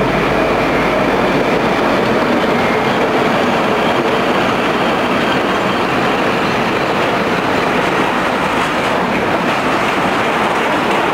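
Brown twin-section electric locomotive hauling a container freight train past at close range: steady loud running noise of wheels and wagons on the rails.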